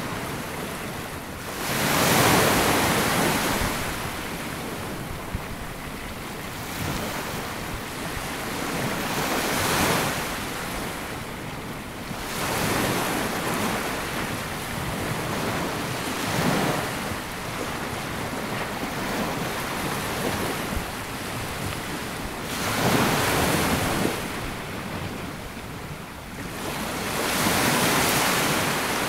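Sea waves breaking and washing up a sandy beach in irregular surges every few seconds, the strongest about two seconds in.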